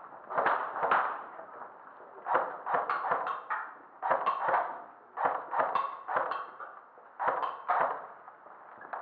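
Airsoft rifle firing about a dozen single shots, often in quick pairs, each with a short echo off the bare concrete walls and ceiling.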